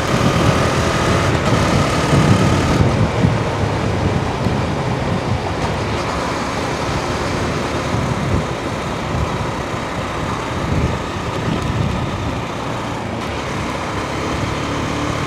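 Husqvarna Svartpilen 401's single-cylinder engine running with a steady knocky sound. The noise sounds like an engine out of oil but comes from how this engine is designed and tuned.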